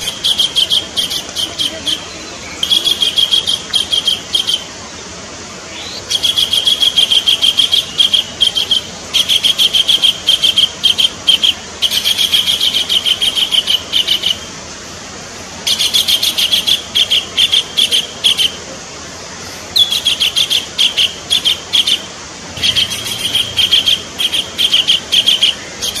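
Collared kingfisher calling in repeated bouts of fast, harsh high notes, each bout lasting one to three seconds with short pauses between them.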